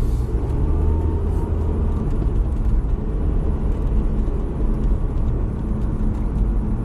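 Steady low rumble, like a vehicle running.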